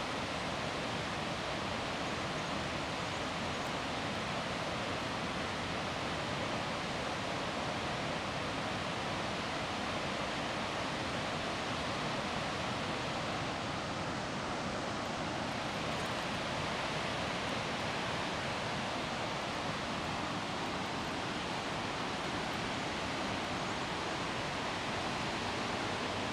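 Floodwater released through a dam's open spillway, churning over rocks downstream as white-water rapids: a steady, even rush of water that never lets up.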